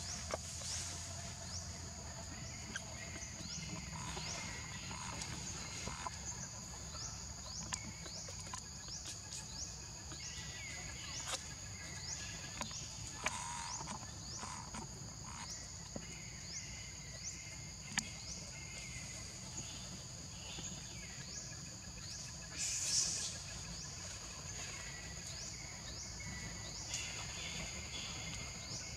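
Insects droning steadily in two high tones, overlaid with short falling chirps that repeat about once a second and a few sharp clicks.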